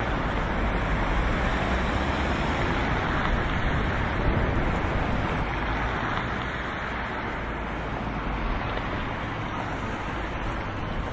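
Street ambience: a steady wash of traffic noise with wind noise on the microphone.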